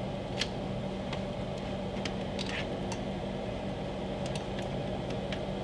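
A steady low hum, with a few faint, short taps from handling salmon fillets and a basting brush on a metal baking sheet.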